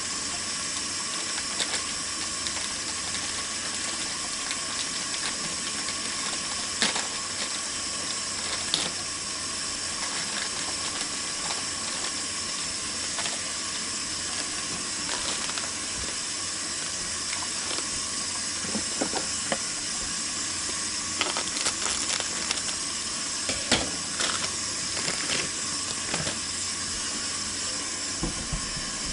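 Food sizzling steadily in a frying pan, with a few light clicks of a utensil against the pan.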